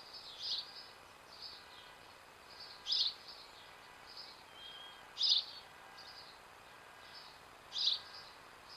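Birds chirping: four louder short calls, roughly two and a half seconds apart, over fainter chirping from other birds.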